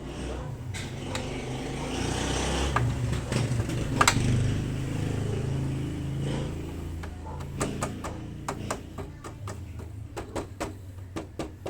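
Yamaha X1 underbone motorcycle engine running with a steady low hum that swells for a few seconds, after its loose fairing panels have been refastened to cut a rattle. Scattered light clicks and knocks, more of them toward the end.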